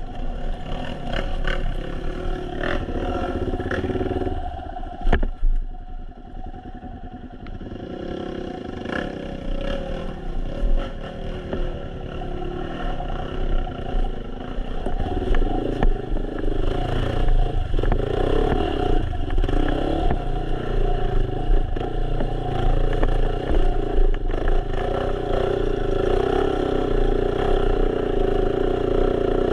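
Dirt bike engine running on a rough trail, with knocks and clatter from the bike over rocks in the first few seconds. The engine drops quieter for a few seconds, then revs up and down louder through the second half as the bike climbs.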